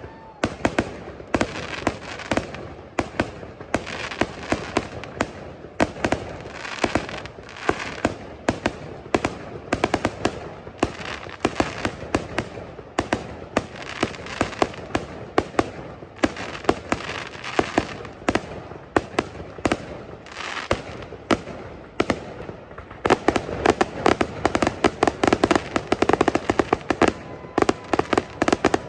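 Fireworks display: a rapid, irregular run of bangs and crackling, growing denser and louder about three-quarters of the way through.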